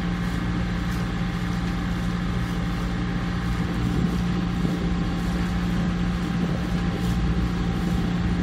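Macwester Seaforth motorsailer's inboard engine running steadily under way, a constant low drone heard inside the wheelhouse.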